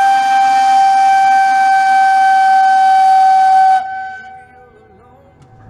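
A long, loud horn blast on one unchanging tone, cut off sharply about four seconds in. It is the warning signal sounded right after the countdown, before the trebuchet is let go.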